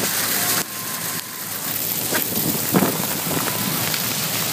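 Hail falling heavily on wet tarmac and parked cars: a dense, steady hiss.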